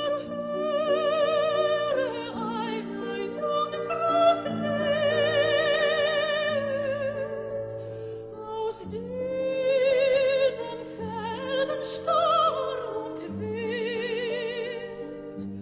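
Background music: a classical operatic voice singing long, held notes with wide vibrato over sustained accompaniment chords.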